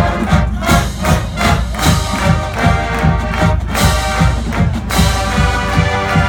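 Marching band playing, brass over a steady beat of bass and snare drums.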